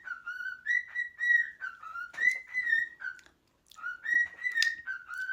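Whistling: a melody of held notes stepping back and forth between a lower and a higher pitch, with a short break a little past halfway.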